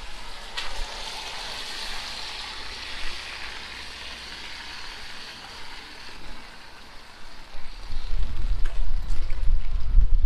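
Wet-street rain hiss that swells about half a second in and slowly fades, then low wind buffeting on the microphone for the last two seconds.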